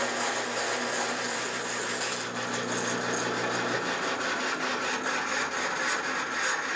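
Large bandsaw running and cutting steadily through a 6-inch-thick piece of hardwood. The freshly sharpened blade chews through the wood fairly quickly.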